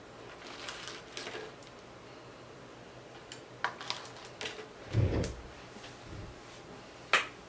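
Quiet handling sounds: a few soft clicks and rustles as long fingernails and hands touch the burgers, fried chicken and paper fry carton, with a dull thump about five seconds in and a sharp click near the end.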